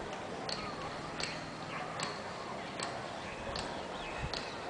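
A bird repeating a short, sharp, high chirp six times, about one every 0.8 seconds, each chirp dropping quickly to a brief clear note.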